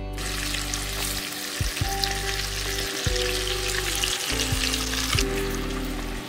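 Battered strips sizzling in hot oil in a wok. The sizzle breaks out sharply as they go into the oil and eases slightly about five seconds in.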